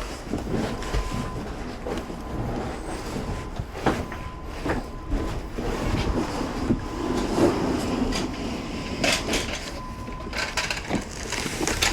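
Rolling wheels rumbling over a hard floor, with scattered knocks and clanks as freight is moved.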